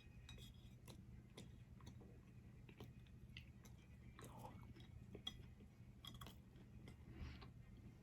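Faint close-up chewing: small wet mouth clicks and smacks of someone eating a Five Guys burger and fries, over a steady low hum.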